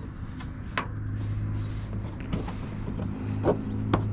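A few sharp clicks and taps from handling the plastic inner fender liner and its clips, over a steady low hum.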